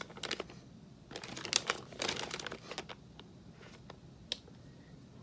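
Plastic jerky bag crinkling as it is handled and turned over, in short spells of crackle during the first three seconds, then one sharp click a little after four seconds.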